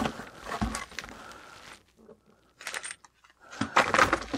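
Subscription-box items and packaging being rummaged through by hand: rustling with light clicks and knocks, a near-silent pause in the middle, then more handling near the end.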